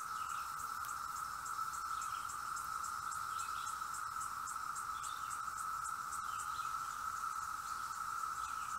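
Chorus of periodical cicadas (Magicicada), a steady unbroken drone at one pitch. A faint, rapid high ticking runs over it through the first half or so.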